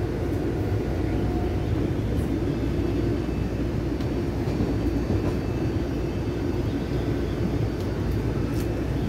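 Steady low rumble of a moving vehicle heard from inside, its running and road noise constant throughout.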